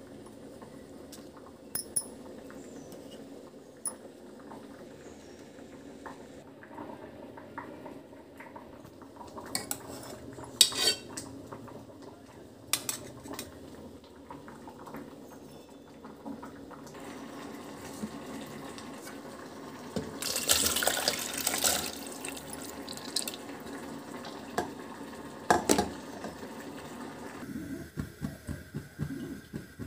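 Steel plate and bowl clinking against an aluminium pressure cooker as coriander and drumstick pieces are tipped into the water inside, with scattered sharp clinks and a louder clattering splash about two-thirds of the way through.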